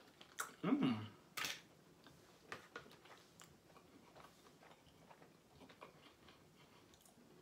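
Close-miked chewing and mouth noises: soft wet smacks and clicks while eating, with a brief low hum about a second in.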